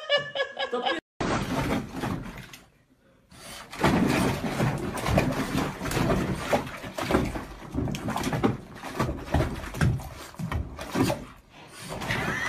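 Water splashing and knocking against a bathtub as a dog thrashes around in a bubble bath, in irregular bursts after a brief pause about three seconds in.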